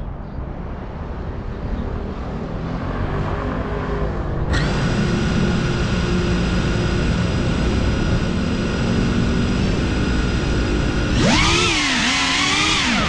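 FPV quadcopter's brushless motors and propellers. A low rushing noise comes first. About four and a half seconds in, the motors start spinning with a steady high whine. Near the end the throttle comes up and the whine rises and wavers in pitch as the drone lifts off.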